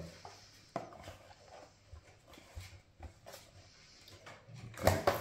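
Faint taps and rustles of playing cards and a cardboard game box being handled on a table, with a louder scuff as the box is picked up and turned over near the end.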